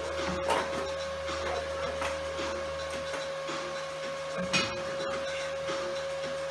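Steady electrical hum of an idling stick welder, with a few light knocks and clicks. The sharpest knock comes about four and a half seconds in.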